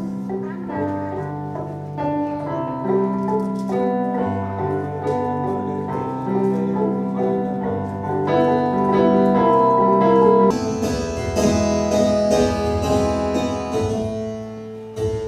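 Live double bass and piano playing a slow piece, the bass holding long low notes under the piano. About ten seconds in the music grows brighter and busier.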